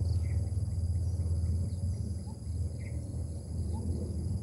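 Insects chirring in steady high-pitched tones over a low steady rumble, with a few short bird chirps.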